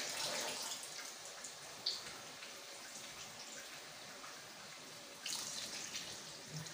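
Faint water sounds of peanut paste being mixed with water, with one light clink about two seconds in.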